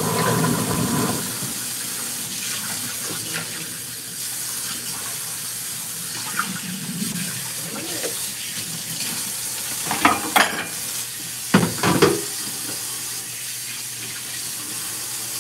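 Kitchen tap running steadily into a stainless steel sink, with a few sharp clatters of dishes about two-thirds of the way through.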